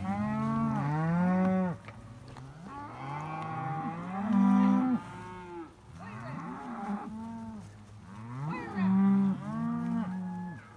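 Cattle mooing: four long, drawn-out moos one after another, with short gaps between them.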